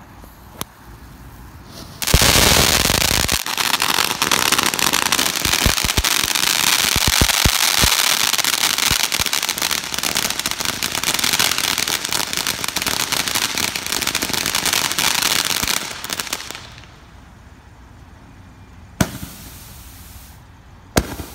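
Fountain firework catching about two seconds in and spraying with a loud, steady hiss thick with crackling for about fourteen seconds, then dying away. Two sharp pops near the end.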